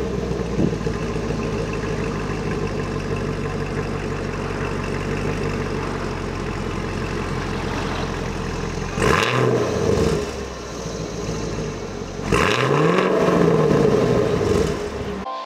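2018 Chevrolet Camaro SS 1LE's 6.2-litre LT1 V8 idling steadily through its quad exhaust, then revved twice: a short blip about nine seconds in and a longer, louder rev about twelve seconds in, each time the pitch rising and then falling back to idle. The sound cuts off suddenly near the end.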